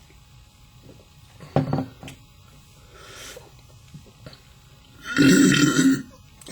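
A man's loud belch about five seconds in, lasting about a second, after a sharp knock and a short hiss earlier on.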